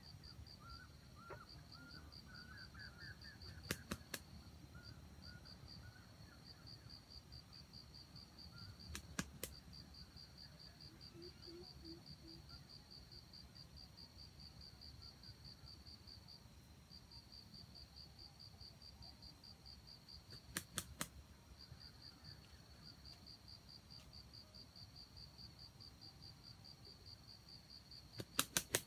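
Insects trilling in a steady, fast high pulse, with a few sharp double claps. Near the end a red junglefowl rooster beats its wings in a quick run of three or four claps.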